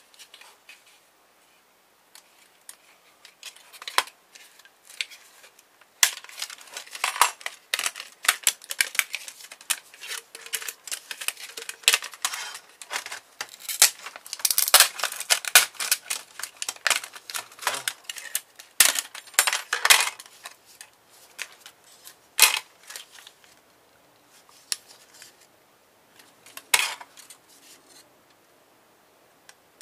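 Clicks, clatters and scrapes of a laptop's slim optical drive being taken apart by hand: the thin sheet-metal casing and plastic parts are handled and pried, with a screwdriver working against metal. The clicking and rattling come thick and fast through the middle, then a few single sharp clicks follow.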